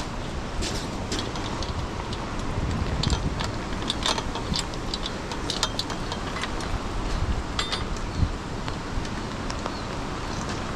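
Wind and rain of a hurricane making a steady rushing noise, with scattered sharp ticks and taps throughout.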